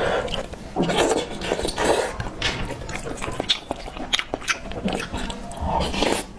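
Close-up eating sounds of a person chewing a mouthful of tangfan (rice in hot broth) with braised pork: wet chewing with irregular mouth clicks and smacks.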